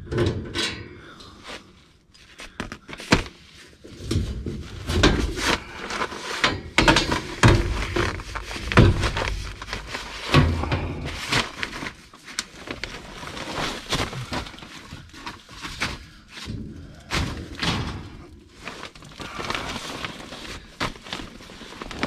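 Sheet-metal front access panel of a Lennox furnace being taken off and handled: an irregular string of knocks, thunks and clattering, with scraping in between.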